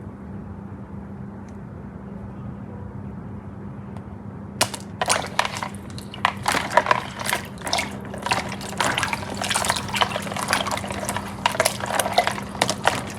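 A steady low hum, then from about four and a half seconds in, water splashing in a dense run of irregular clicks and splashes.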